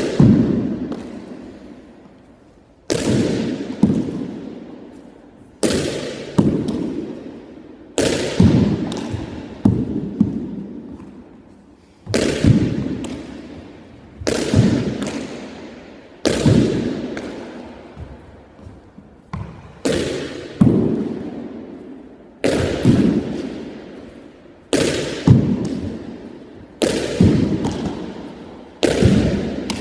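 A pitching-machine ball banging hard against the wall of an empty gym court and rebounding, again and again roughly every two seconds, some hits followed closely by a second knock; each bang rings out in the bare room's long echo.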